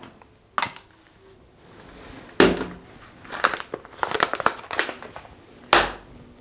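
Paper coffee-bean bag rustling and crinkling as it is handled and folded, mixed with a few sharp knocks of items set down on the counter, the loudest about two and a half seconds in and near the end.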